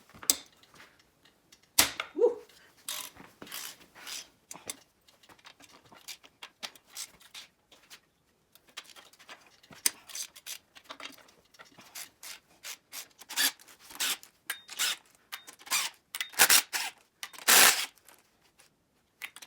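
Nuts being spun off the cylinder head studs of a VW Type 1 1600 engine: irregular metallic clicking, rubbing and scraping, with several sharper knocks, the loudest near the end.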